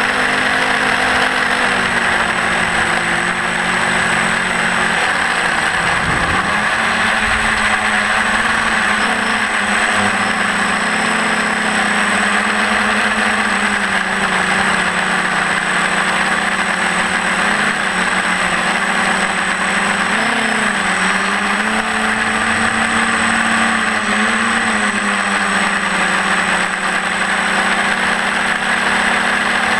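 TBS Discovery quadcopter's electric motors and propellers running steadily, their hum rising and falling in pitch every few seconds as the throttle changes, over a constant high whine.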